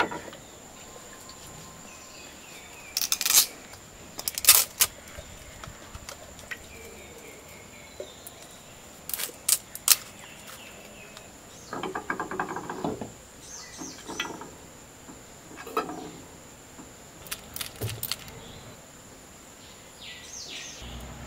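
Scattered sharp clicks and knocks as ingredients are added by hand to a clay cooking pot, with a longer rustling scrape a little past halfway. Birds chirp faintly and a steady high-pitched tone runs behind.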